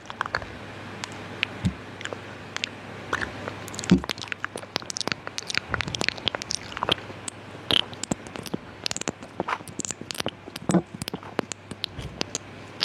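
ASMR mouth sounds close to the microphone: irregular wet clicks and smacks of lips and tongue, several a second, over a steady faint hiss.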